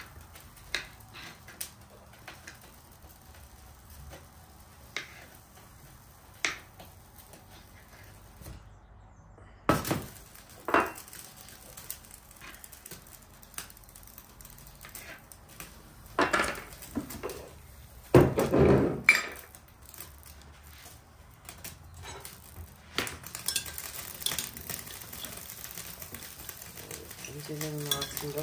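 A knife tapping on a cutting board as green olives are sliced, in scattered single taps, with a few louder clunks of kitchenware around the middle. In the last few seconds butter starts hissing as it melts in a hot frying pan.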